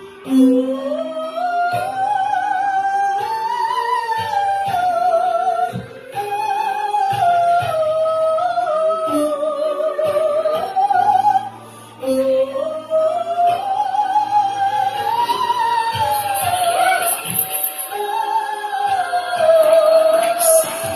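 Music: a high voice sings long, wavering phrases with vibrato in an operatic style over accompaniment, pausing briefly twice.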